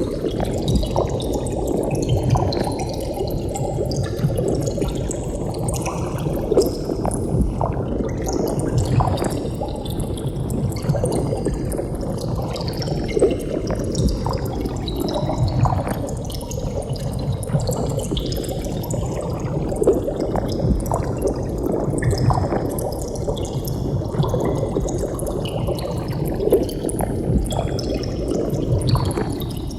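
Continuous underwater bubbling and gurgling: a steady stream of many small bubbles popping and burbling, with no pause.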